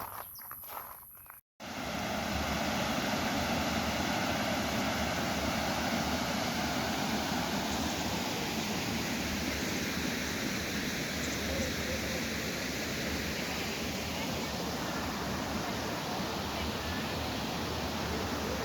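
Steady, even rush of falling water from a waterfall, starting abruptly about a second and a half in after a brief quieter stretch.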